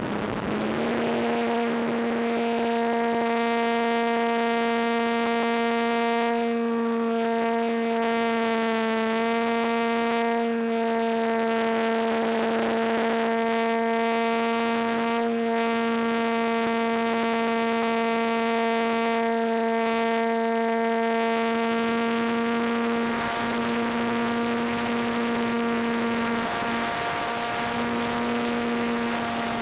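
Electric motor and propeller of a ParkZone T-28 Trojan RC plane, heard from its onboard camera: a steady whine that steps up in pitch just after the start as the motor spins up for takeoff, then holds, with a few brief dips near the end. Wind rushes over the microphone.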